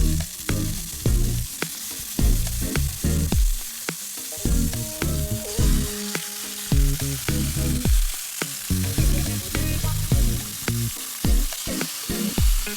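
Food sizzling as it fries in a pan, a steady hiss, with background music carrying a regular bass beat.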